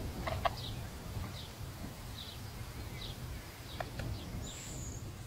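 Birds chirping in the background, short high chirps scattered through, with one higher whistled note about four and a half seconds in, over a steady low rumble.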